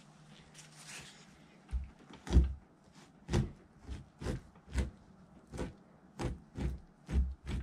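Fleshing tool scraping meat and fat off a raccoon hide stretched over a wooden fleshing beam, in short repeated pushes about one or two a second, each a sharp scrape with a low thud. The strokes begin a couple of seconds in.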